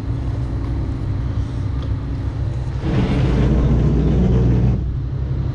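Marine diesel engines idling with a steady low rumble. About three seconds in, a louder rushing noise rises over it for about two seconds, then drops away.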